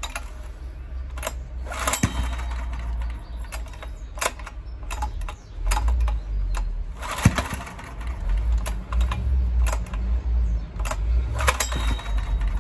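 Honda EX1000 generator's small petrol engine being pull-started with the choke on: repeated tugs on the recoil starter. In the second half the engine catches in uneven bursts, coughing and spluttering without settling into a run, which the owner puts down to a fuel issue.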